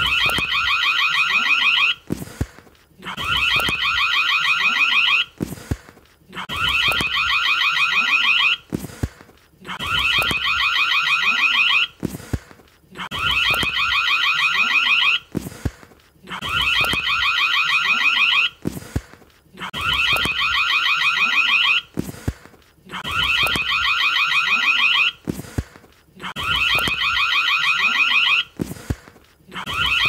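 Electric doorbell ringing with a rapid rattling clapper, in bursts of about two seconds separated by short pauses, repeating about every three seconds.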